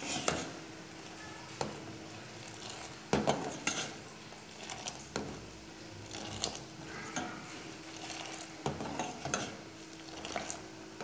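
A metal spoon stirring in a steel cooking pot, with irregular clinks and knocks against the pot, loudest about three seconds in.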